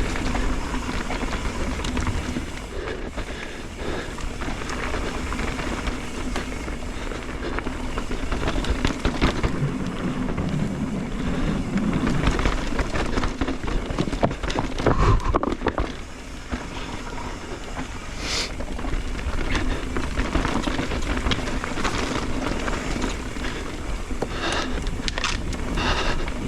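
Mountain bike rolling fast down a dirt trail: steady tyre noise with frequent clicks and knocks as the chain and frame rattle over bumps.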